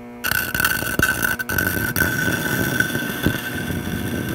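A steel blade pressed against a slowly turning 20-inch wet sandstone grinding wheel, a rough grinding scrape that starts suddenly a moment in and carries on steadily, with a steady high tone and scattered clicks. Under it is the hum of the treadmill DC motor that drives the wheel, which is drawing more current under the load.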